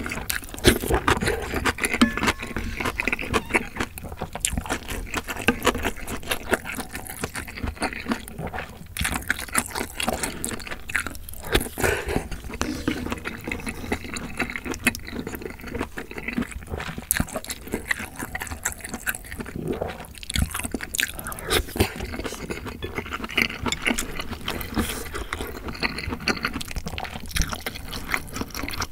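Close-miked eating sounds: wet chewing of a mouthful of ramyeon noodles and sliced sausage, with lip smacks, broth sounds and a spoon and chopsticks scraping and clicking against the bowl.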